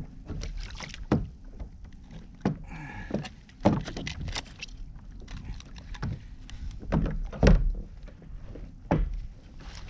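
Irregular knocks and thumps on a plastic kayak as a freshly caught snapper is handled and unhooked on the angler's lap, with a brief squeak about three seconds in.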